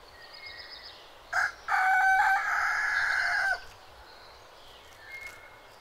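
Rooster crowing once: a short first note, then a long held note that drops in pitch at the end.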